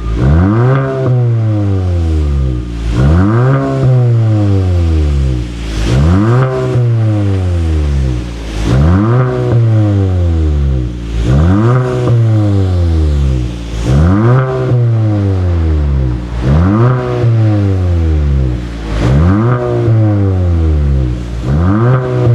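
Kia K5 1.6 turbo four-cylinder with a dual variable (valved) aftermarket exhaust, revved repeatedly while stationary: nine quick blips, each rising fast and falling back slowly, about one every three seconds.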